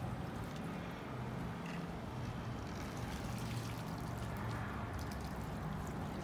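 Pond water sloshing and trickling as a long-handled fish net is dipped in and lifted out, with a low steady hum underneath.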